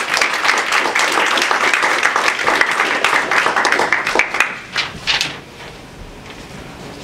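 Audience applauding after a lecture, dying away about five seconds in.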